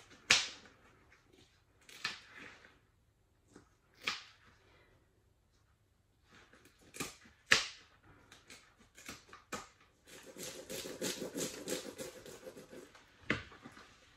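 Kitchen scissors snipping through a perch's fins: sharp single cuts spaced a second or two apart, then a quick run of small clicks for about three seconds near the end. The scissors are old and, by the owner's account, have grown blunt and cut poorly.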